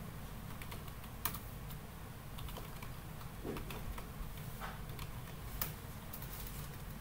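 Computer keyboard typing: irregular, scattered keystroke clicks as a shell command is entered.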